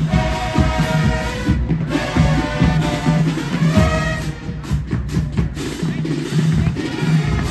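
HBCU marching band playing: the horns hold loud chords over the drumline, then drop out a little past halfway, leaving the drums and a few sharp hits.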